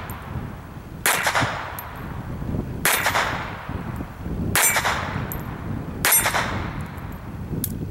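Four shots from an Astra Cub .22 Short pocket pistol, about one and a half to two seconds apart, each trailing off briefly.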